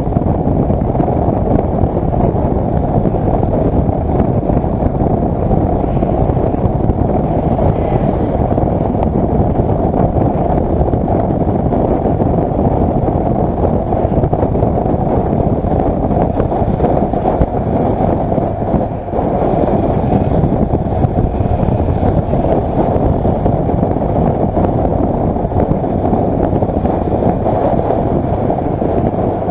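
Steady wind rush and road noise from a Kawasaki Versys motorcycle moving at speed, buffeting the camera microphone. It dips briefly about two-thirds through.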